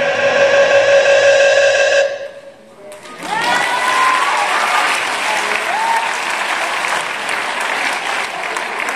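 Dance music with a held sung or synth line cuts off abruptly about two seconds in. After a short lull, an audience breaks into applause with high-pitched cheers and calls.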